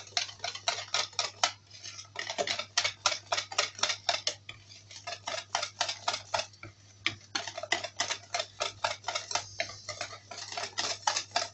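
Wire hand whisk beating cupcake batter in a bowl, its wires ticking rapidly against the bowl at about five strokes a second as flour is worked into the wet mix.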